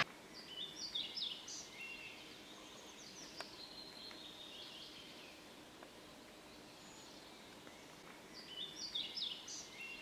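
A small songbird singing faintly: a short phrase of quick, high, clear notes, heard in the first three seconds and again near the end.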